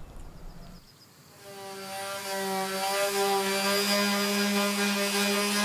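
Electric detail sander running against the rocket's body: a steady, even motor hum with a hiss of sanding, fading in about a second and a half in.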